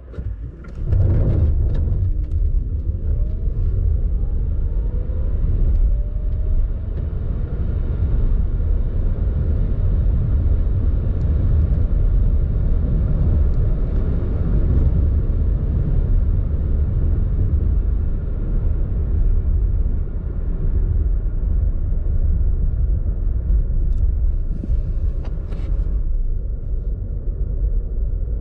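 Renault Zoe R110 electric car accelerating hard from a standstill, heard from inside the cabin. A deep road and tyre rumble comes in about a second in and then holds steady at speed, with a faint rising whine from the electric drive over the first few seconds and again near the end.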